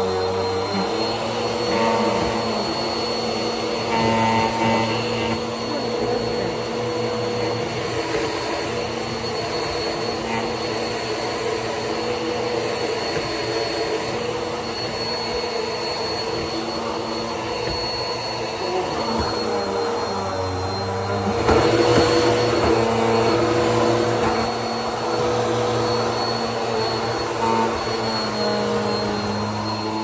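Bagless upright vacuum cleaner running continuously, its motor hum and high whine steady as it is pushed over the floor. About two-thirds of the way through, the pitch briefly shifts and the sound then grows louder for a few seconds.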